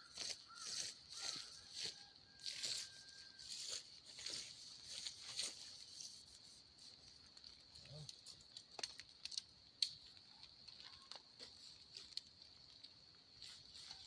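Nylon tent fabric rustling and crinkling in quick repeated bursts as it is spread out and tugged by hand. The bursts are dense for the first six seconds, then sparser, with a few sharp clicks later.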